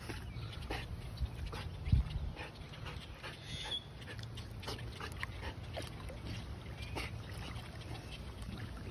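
Labrador–blue heeler mix dog moving in the shallow creek edge with a stick in its mouth: scattered small splashes and knocks, with one louder thump about two seconds in, over a steady low rumble.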